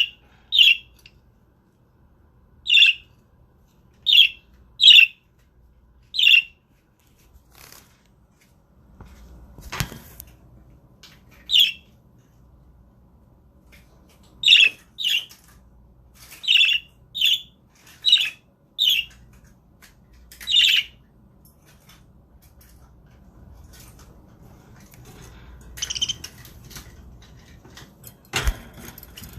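Budgerigars giving short, sharp chirping calls one at a time, about fifteen of them at irregular intervals. A couple of low thumps come in, one about ten seconds in and a louder one near the end.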